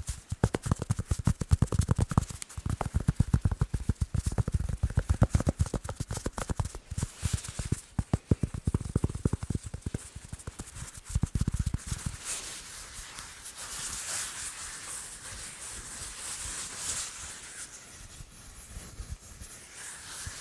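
Fast fingertip tapping on sports balls, many dull taps a second with a hollow low thump. About twelve seconds in the tapping gives way to a softer, hissier scratching for the rest.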